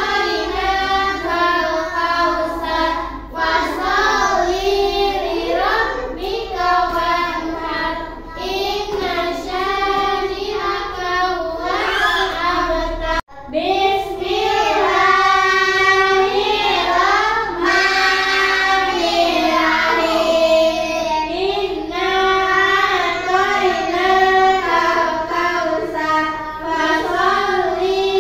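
A group of young children singing a song together, continuous and fairly loud, with a brief sudden dropout about halfway through.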